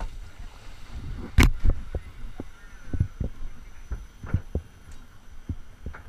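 Irregular low thumps with one sharp knock about a second and a half in: handling and wind noise on the camera's microphone as the camera is moved about.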